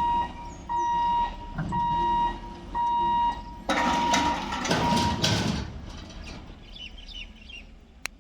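Electronic warning beeper of a railway level crossing sounding a steady tone about once a second. About four seconds in, a loud rushing noise rises over it and fades away by about six seconds.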